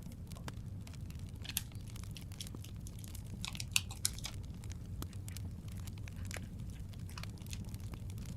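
Paper being handled, crinkling and tearing, with scattered sharp clicks and pops over a steady low rumble of a crackling fireplace. The loudest pops come a little under two seconds in and twice around four seconds in.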